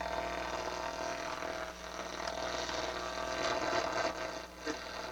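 AM radio static from a Pioneer SX-626 receiver over its speaker as the tuner is switched to the AM band: steady hiss and crackle with a faint steady whine.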